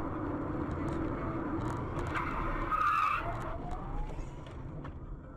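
Road and engine noise from a car driving on a highway, heard from inside the car. From about two seconds in, tyres squeal in a skid for about a second, with a few sharp knocks.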